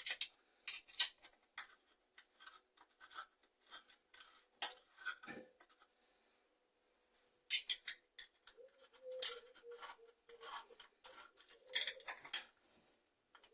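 Scattered clicks and light clinks of small metal tap parts and tools being handled and fitted, with a pause about six seconds in. A faint steady tone sounds for a few seconds near the end.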